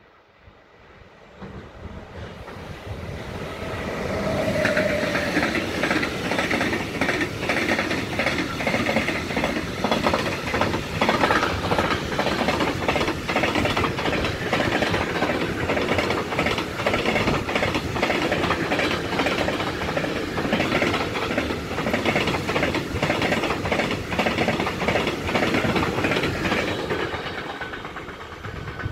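Container freight train passing close by: the sound builds as the train approaches, then a long run of wagon wheels clattering over the rails, easing off near the end as the last wagons go by.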